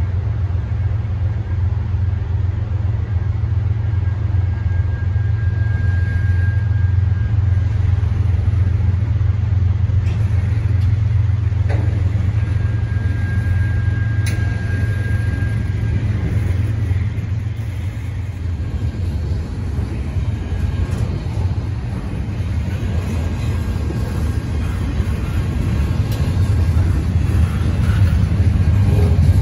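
Steady low road rumble of a moving car, heard from inside the cabin, with a few faint clicks.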